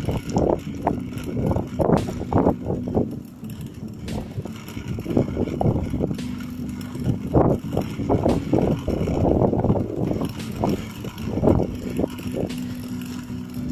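Wind buffeting the microphone over a continuous rough rumble of travel along a gravel road, with irregular short bumps and a faint steady hum underneath.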